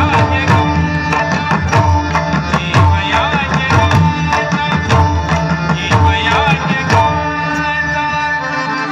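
A large ensemble of pakhawaj barrel drums played by hand in a fast, dense rhythm, accompanying a sung Marathi devotional abhang over steady held notes. The drumming stops about seven seconds in, leaving only the held notes fading away.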